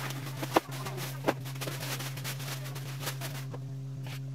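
Plastic bags rustling and household items knocking as they are lifted and set down, with two sharp knocks about half a second and just over a second in, over a steady low hum.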